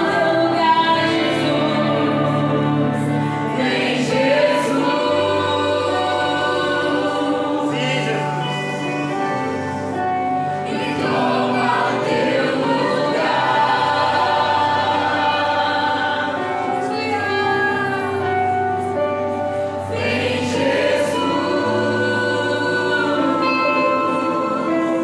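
Christian worship music with a choir of voices singing over a steady bass accompaniment.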